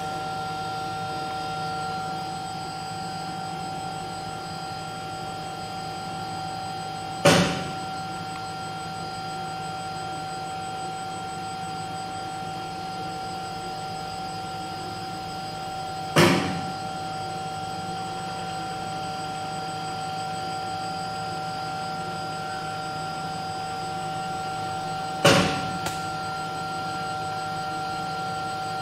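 Lab melt spinning machine running with a steady hum carrying several fixed tones from its winding and traversing drive and fans. A sharp knock sounds three times, about every nine seconds.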